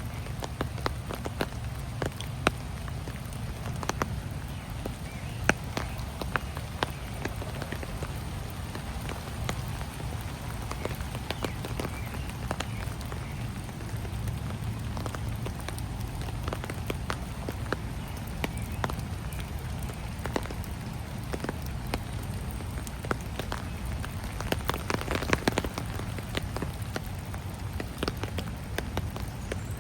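Rain falling, with scattered drops tapping sharply close by at irregular moments, a denser patch of them near the end, over a steady low rumble.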